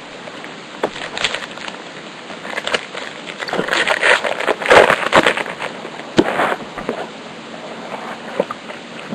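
Bowman Chrome baseball cards handled and flipped one by one: a run of light clicks and sliding rustles, busiest and loudest about four to five seconds in.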